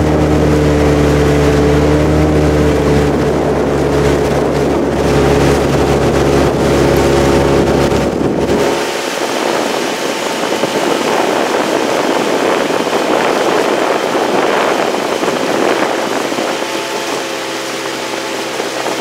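Motorboat engine running at a steady speed, then throttled back about eight and a half seconds in, its deep hum dropping away to a lighter running noise with wind on the microphone.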